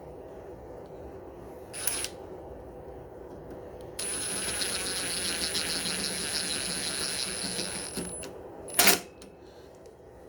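A short metallic click, then a steady pressurised hiss for about four seconds with a thin high whistle over it, typical of spraying parts during carburetor cleaning, ending in a loud sharp metallic clack as a part or tool is set down.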